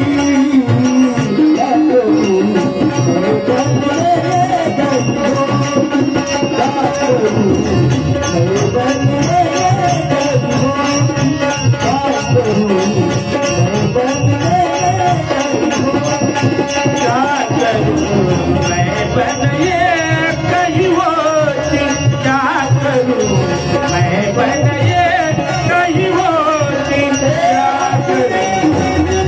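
Devotional bhajan music: a bending, wavering melody over a steady drum and small-cymbal beat.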